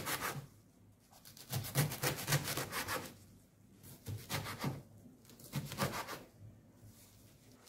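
Kitchen knife rapidly slicing fluted pumpkin (ugu) leaves on a bamboo cutting board: quick, soft runs of strokes through the leaves and against the wood, in several bursts with short pauses between.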